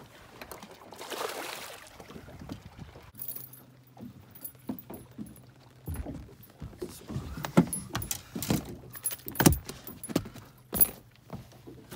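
A bass splashing as it is swung out of the water about a second in, then a run of sharp knocks and metallic clinks from handling the catch and a spinnerbait on a fiberglass boat deck, over a low steady hum.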